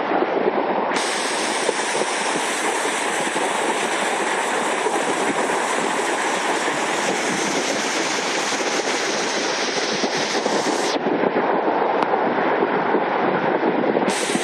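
Steady rush of fast-flowing, muddy flash-flood water running high down a desert wash.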